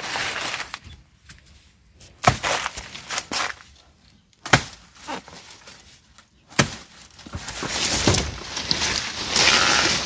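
A sharp hand cutting tool chopping into plant material: four sharp strikes about two seconds apart, then a stretch of rustling.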